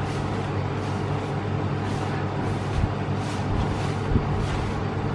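Steady hum of a room air conditioner, with a soft, repeated crunching rustle of bare hands squeezing and turning a dry bath bomb mix of bicarbonate of soda and granular citric acid.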